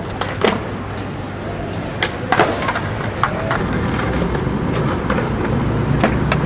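Skateboard wheels rolling over smooth concrete with a steady low rumble, broken by several sharp clacks of the board, the loudest about half a second in and about two and a half seconds in.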